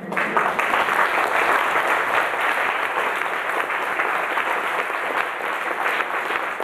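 Audience applauding: loud, dense clapping that starts suddenly and keeps up evenly.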